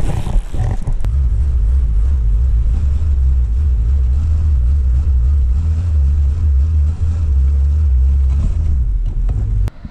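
Loud, steady low rumbling on a chest-worn camera's microphone while wading backwards through shallow incoming tide: water and movement buffeting the mic. It cuts off suddenly near the end.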